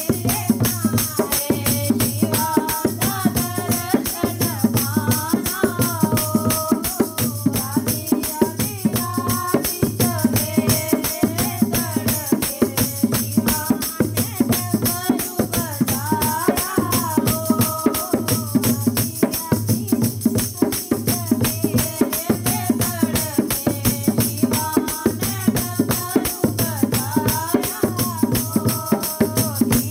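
Devotional bhajan music: a gliding melody over fast, jingling percussion and a steady low drum beat.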